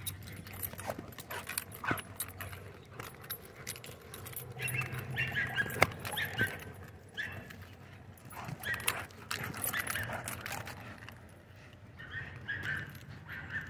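German Shorthaired Pointer making dog noises in three bursts while playing with and shaking a rope toy, with scattered sharp clicks between them.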